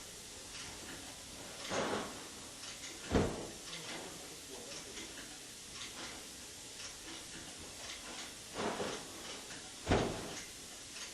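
Sharp 'Dotchimo Door' refrigerator door opened and shut twice in a door open-close endurance test. Each time a brief swish as the door comes open is followed about a second later by a solid thud as it shuts, with faint ticking in between.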